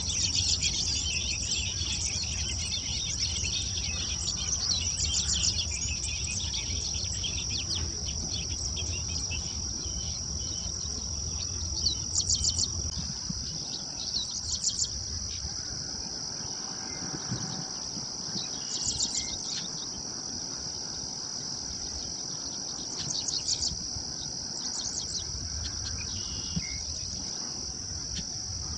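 Steady high-pitched insect drone from the grassy field, broken every few seconds by short buzzy trills, with a few soft "chack" calls from a female bobolink.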